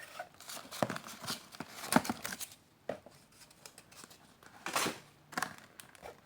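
Cardboard and plastic packaging being handled and opened: rustling, crinkling and light tearing with scattered small clicks. The loudest rustles come about two seconds in and again near five seconds.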